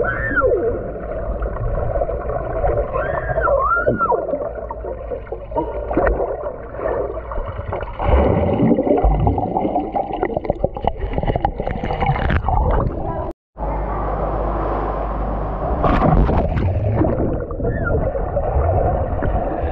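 Muffled, gurgling pool water and splashing, as heard with the microphone underwater. The sound briefly drops out about two-thirds through.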